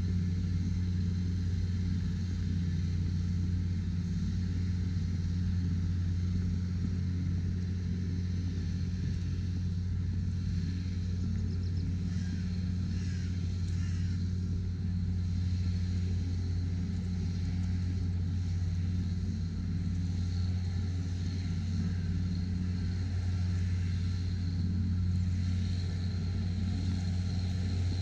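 A steady, unchanging low rumble with a faint hiss above it.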